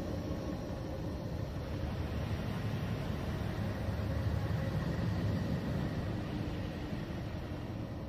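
NASA 'space sound' for Neptune, a recording of spacecraft radio emissions converted to audio. It is a steady, low rumbling drone of noise with a few faint held tones above it.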